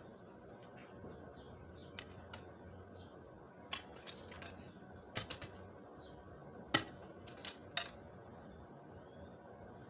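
Weeding: grass and weeds being pulled and cleared from the soil, heard as a few irregular sharp snaps and scrapes. A faint bird chirp near the end.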